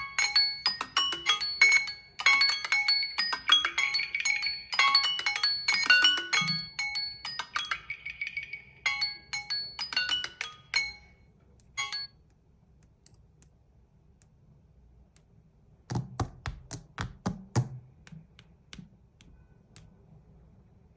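A Samsung Galaxy smartphone's alert tone playing through its speaker: a melody of short, clear chiming notes that stops about twelve seconds in. A few seconds later comes a quick run of knocks and clicks.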